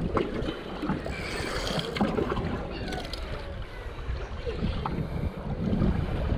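Wind buffeting the microphone over sea water sloshing around a small boat, with a few faint ticks.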